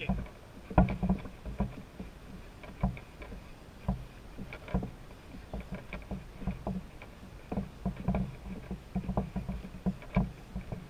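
Handling noise from a handheld action camera on a grip: irregular low thumps and knocks, about one to three a second, as the rig is jolted and shifted in the hand while its holder walks.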